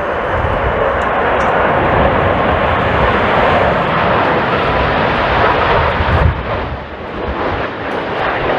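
Jet airliner's engines running loud on a landing pass, a dense, even noise that eases briefly near the end. Gusty low rumble of strong wind buffets the microphone underneath.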